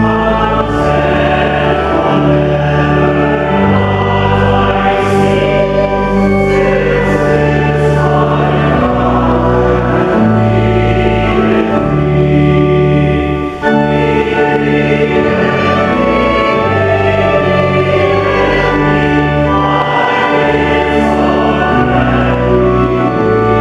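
Many voices singing a hymn together over held accompaniment chords with a steady bass, changing chord every second or two.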